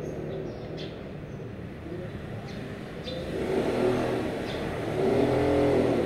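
Motor vehicle engines passing by, swelling up twice, louder the second time near the end, over a steady traffic background. A few faint, short bird chirps come through.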